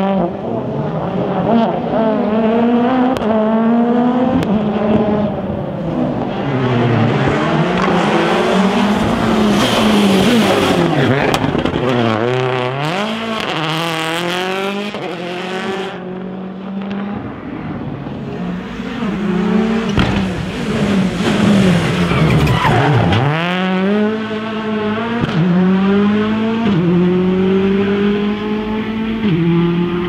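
Ford Fiesta rally car's engine being driven hard. Its pitch climbs in repeated rising sweeps, each broken off by a gearshift, and twice falls steeply as the car slows for a corner before it accelerates again.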